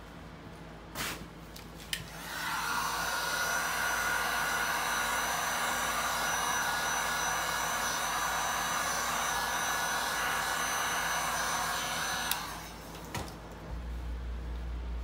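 Handheld heat gun blowing over freshly poured clear epoxy resin: it comes on about two seconds in, runs steadily with a faint whine for about ten seconds, then stops. A few light clicks and knocks come just before it starts and just after it stops.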